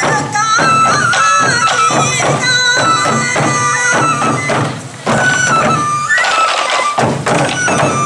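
Sansa odori festival music: many waist-slung taiko drums struck together in rhythm under a high Japanese bamboo flute (fue) melody. The sound dips briefly about five seconds in, then the drumming and flute resume.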